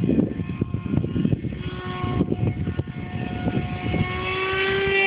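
Radio-controlled F-18 model jet flying past overhead: its electric motor whine grows louder through the second half and starts to drop in pitch at the very end as it passes. An uneven low rumble runs underneath.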